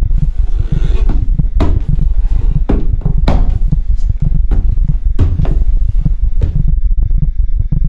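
Heavy footsteps of boots thudding up stairs, about ten steps, over a low pulsing drone.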